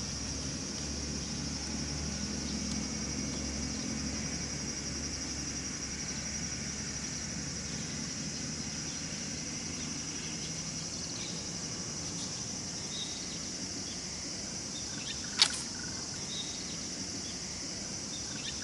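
Steady chorus of insects, a continuous high shrill with a fine pulse, with a low rumble under it in the first half. A single sharp click about fifteen seconds in.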